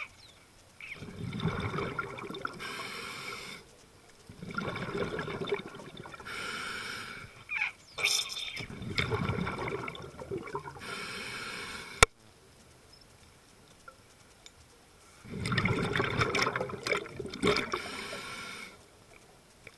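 Scuba diver breathing through a regulator underwater: four rounds of bubbling exhalation, each followed by a shorter hiss of inhalation, with a pause of about three seconds after the third breath. A single sharp click comes just after the third breath.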